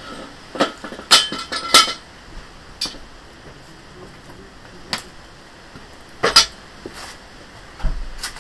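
Metal hand tools and parts being handled and set down on stone paving: a series of separate sharp clinks and clanks, a quick run of them about a second in and another loud pair a little past six seconds.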